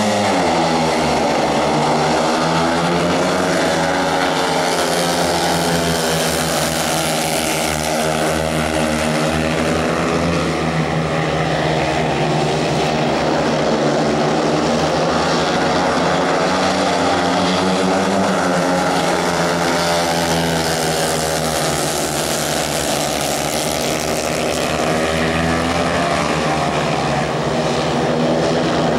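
A pack of speedway motorcycles racing, their 500 cc single-cylinder methanol engines running open and loud, the pitch swinging up and down every few seconds as the riders go through the bends and down the straights.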